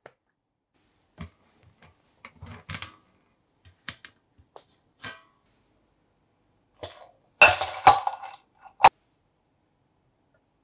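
Glass bowls and ice cubes clinking: a dense run of sharp clinks and rattles as a glass bowl is set down into a larger glass bowl of ice, ending in a single sharp clink. Before it come scattered light knocks and taps of kitchenware being handled.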